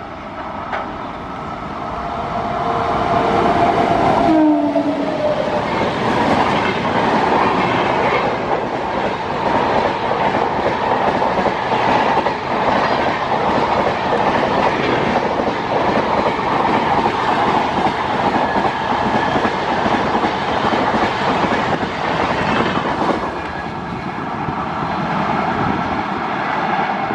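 Indian Railways express train passing at high speed: the locomotive's horn sounds steadily on approach and drops sharply in pitch as the engine goes by about four seconds in. Then comes a long, loud rush of the coaches with dense wheel clatter, easing off a few seconds before the end.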